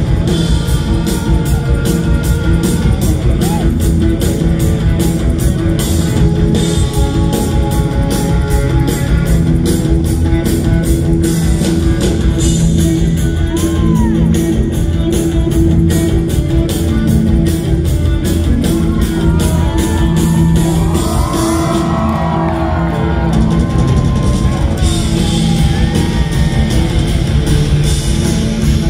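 Live rock band, with distorted electric guitars, bass, drums and keyboards, playing loudly, with a steady drum beat. Heard from the audience in a large hall, with a run of high sliding, wailing pitches about two-thirds of the way through.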